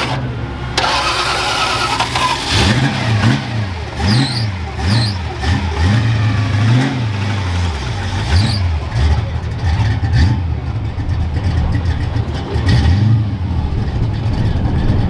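Car engine revving up and down repeatedly as the car is driven hard off-road, the pitch rising and falling about once a second, then settling into a steadier run with smaller swings.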